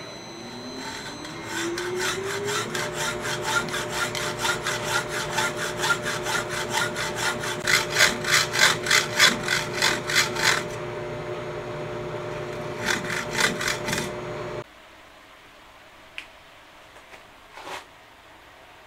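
Hand hacksaw cutting through the parting groove of a metal valve blank spinning in a lathe chuck: quick rasping strokes, several a second, over the lathe's steady running hum. The sawing pauses and resumes briefly, then the lathe shuts off abruptly about three-quarters of the way through, leaving a few faint clicks.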